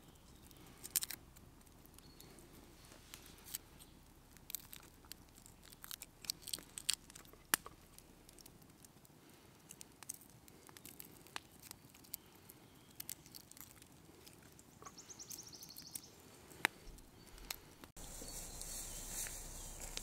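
Garlic cloves peeled by hand: papery skins crackling and tearing in scattered small clicks. About two seconds before the end, a louder steady hiss takes over.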